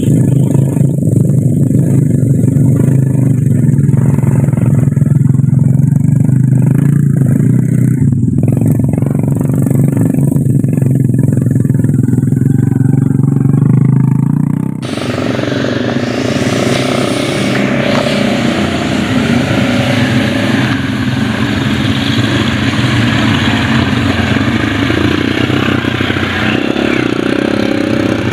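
Small motorcycles pulling carts loaded with oil palm fruit bunches, their engines running steadily at low speed under load. About halfway through the sound changes abruptly to another stretch of engine running, with more hiss above it.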